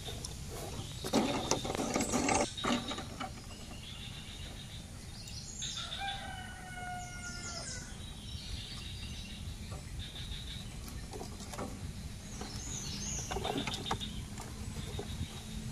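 A rooster crows once, a call of about a second and a half starting about six seconds in, over steady outdoor background noise. Near the start there are a few louder bursts of handling noise from the wire-mesh fish trap being lifted over the box.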